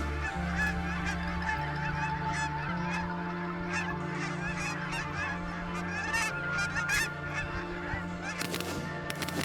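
A flock of geese honking, many short calls overlapping.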